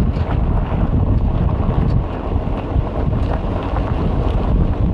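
Wind buffeting the microphone of a camera mounted outside a car driving along a dirt road, over a steady low rumble of the tyres on the unpaved surface.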